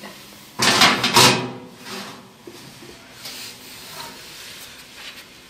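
A glass baking dish scraping and rubbing over the oven shelf as it is slid into a gas oven, loudest about a second in, followed by a few lighter scrapes and knocks as it is pushed into place.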